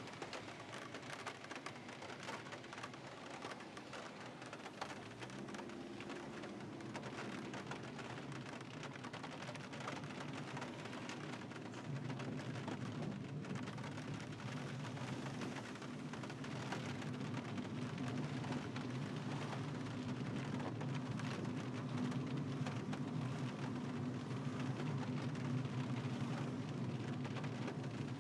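Steady rain with many small drop hits, over the low hum of a car driving on a wet road. The hum grows louder about halfway through.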